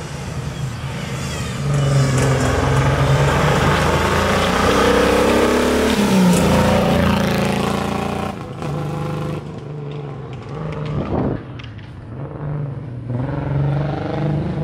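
Rally car engine at high revs, loudest for several seconds, with its pitch dropping sharply about six seconds in. The engine then runs quieter, with short revs rising in pitch.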